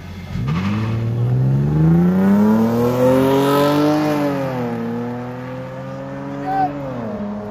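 Two cars launching side by side in a drag race: the engines rev hard, climbing in pitch through first gear, drop at a gear change about four and a half seconds in, and drop again near the end as they pull away down the road and grow quieter. A brief high chirp sounds shortly before the end.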